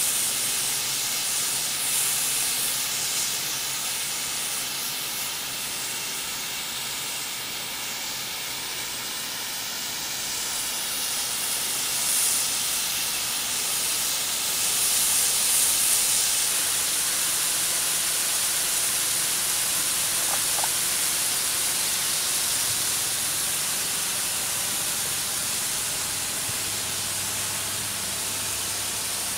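Backyard snow gun on a pole spraying a plume, its nozzle giving a steady high hiss.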